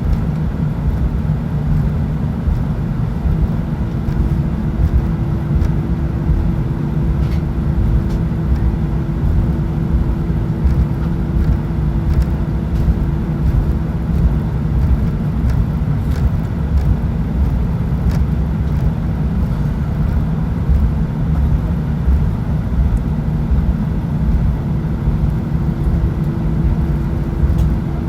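Airbus A319 cabin noise during taxi: a steady low rumble of the jet engines at taxi power and the rolling airframe. A faint steady hum drops out about halfway through and returns near the end.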